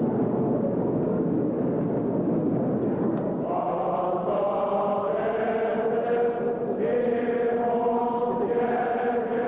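Armenian church chant: voices singing long held notes together, the pitches shifting every second or two. The sound is blurred for the first few seconds and becomes clearer from about three and a half seconds in.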